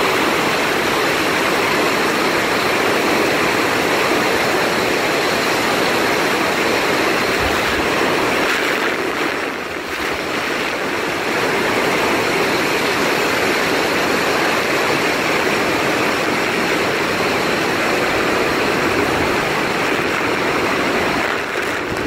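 Pailón del Diablo waterfall heard close up: a loud, steady rush of falling water, with a brief dip about ten seconds in.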